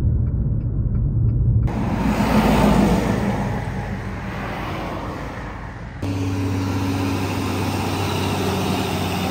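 Car driving on a highway: steady engine and road noise that changes abruptly twice. It starts as a low rumble, becomes a wide hiss of wind and tyres about two seconds in, and ends as a steady low engine drone.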